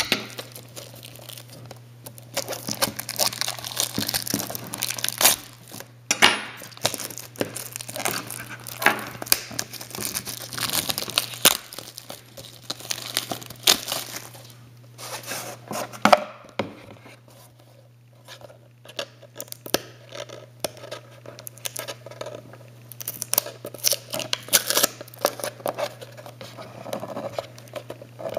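Wrapping of a trading-card box being torn open and crumpled by hand: irregular crinkling, tearing and rustling that comes and goes in spells, over a steady low hum.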